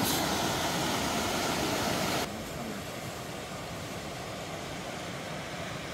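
Steady rush of a river flowing past, an even noise with no distinct events, dropping somewhat in level about two seconds in.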